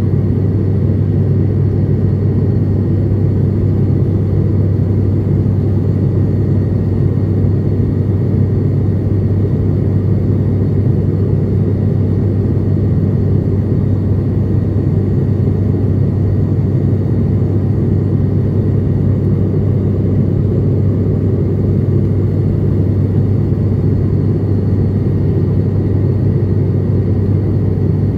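Steady low drone of an aircraft cabin in flight, engine and airflow noise heard from inside, with a faint high steady tone above it.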